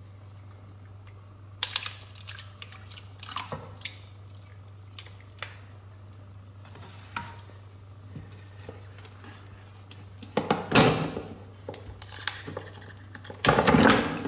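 Water splashing and dripping in a stainless steel bowl as ice blocks holding phones are moved and pressed in the water, with scattered small splashes and louder sloshing about ten seconds in and again near the end.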